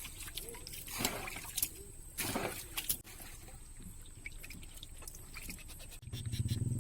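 Scattered clicks and light handling rustles, then about six seconds in a small engine starts running with a low, even pulse.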